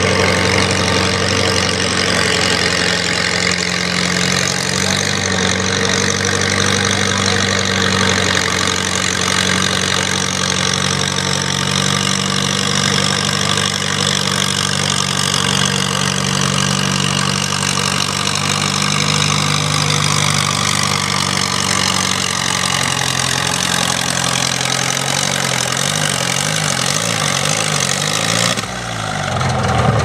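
Case farm tractor engine running under load while pulling a weight-transfer sled, a steady drone. From about 25 seconds in the engine note wavers and turns uneven as the pull slows, then the sound drops off suddenly just before the end.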